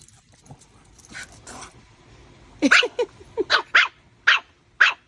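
Small puppy barking in a quick run of short, sharp yaps, about six in the last two and a half seconds.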